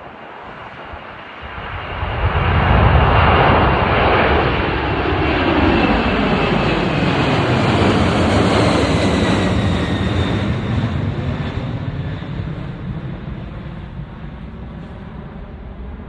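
Boeing 747-400F's four jet engines at take-off thrust as the freighter passes. Loud jet noise swells about two seconds in, with high whining tones that drop in pitch as it goes by, then slowly fades.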